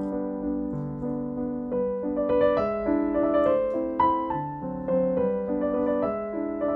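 Background piano music: a melody of single notes over held chords.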